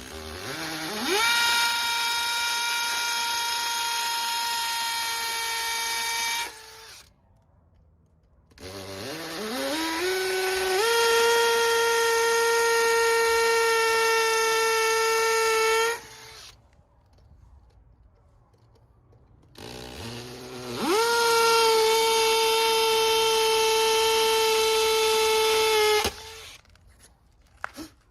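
Electric drill boring anchor holes into solid old brick: three long runs, each spinning up with a rising whine, holding a steady pitch for several seconds, then stopping.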